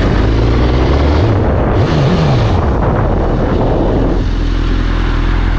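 Suzuki GSX-R 1000 K7's inline-four engine running just after a push start on a flat battery, revved up and down about two seconds in. A rushing noise over it drops away after about four seconds, leaving a steady idle.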